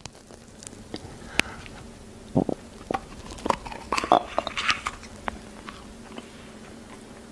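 A man's mouth chewing and smacking: scattered, irregular wet clicks and smacks.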